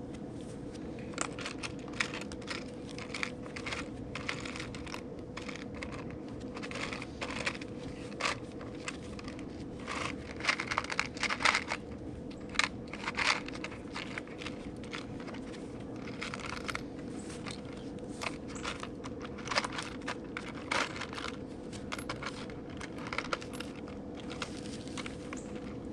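Rummaging through a bin of small screws and hardware: irregular clicking, clattering and rustling, busiest around the middle, over a steady hum.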